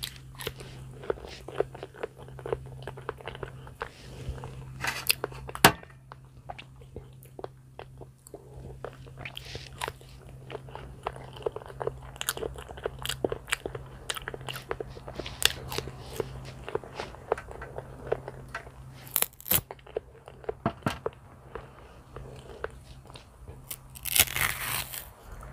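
Close-miked eating of a peeled banana: a bite, then chewing with many small mouth clicks. Near the end, a louder rustling tear as the next banana is peeled.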